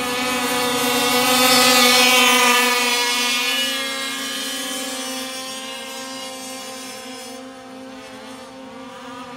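1/5-scale RC race trucks running at speed on the track, with a steady high-pitched motor note. It is loudest about two seconds in, then fades as they move away.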